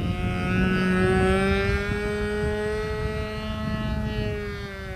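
Evolution .36 two-stroke glow engine of a radio-controlled model plane, turning an 11x4 propeller in flight: a steady high-pitched buzz. Its pitch rises slightly, then drops and fades near the end as the plane passes.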